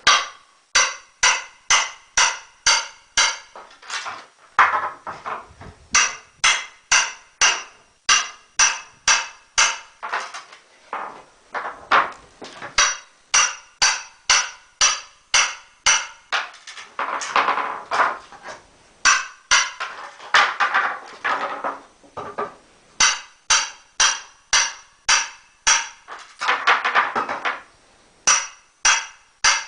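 Steady hammer blows, metal striking a crowbar as it is driven into a wooden pallet, about two to three ringing strikes a second with a few short pauses. Three times a longer grating sound runs under the strikes.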